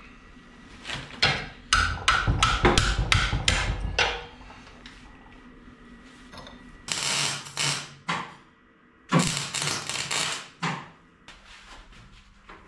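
Hammer blows on sheet steel, about ten quick ringing strikes in a row as a piece is bent into shape. Later come several harsher noises of about a second each.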